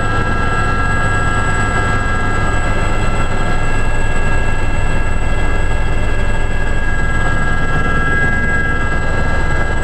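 Aérospatiale Gazelle turbine helicopter in flight, heard from inside the cabin: a steady low drone of the rotor and engine with a constant high whine over it.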